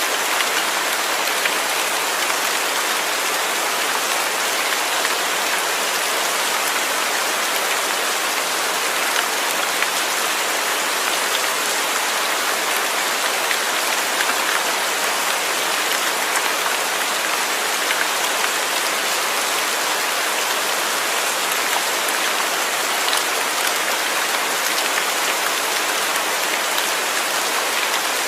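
Steady rain falling, a dense even hiss of drops with fine pattering, without a break or change.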